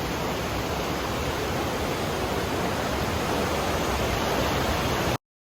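Aare river water rushing hard through the narrow rock gorge and under a rock overhang, a steady, even rush. It cuts off suddenly about five seconds in.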